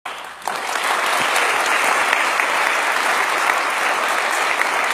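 Audience applauding steadily, a dense sound of many hands clapping that comes up to full strength about half a second in.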